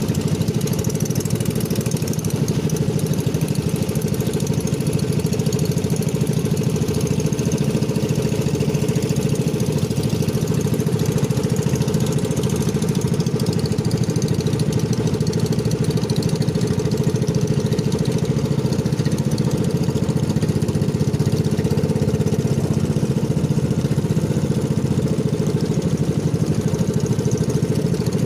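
Engine of a motorized outrigger boat (bangka) running steadily while under way, with a faint hiss above it.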